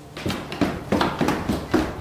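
Quick footsteps, about three steps a second, each a sharp thud.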